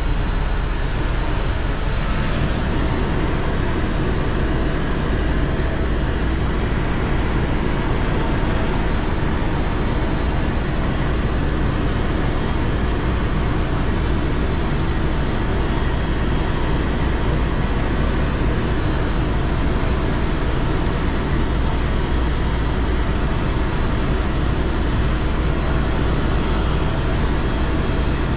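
Steady, unbroken running noise of a moving vehicle, heavy in the low end.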